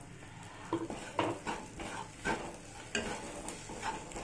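Wooden spatula scraping and stirring horse gram powder, onions and tomato in a nonstick pan, about two strokes a second starting about a second in, over a sizzle from the hot pan.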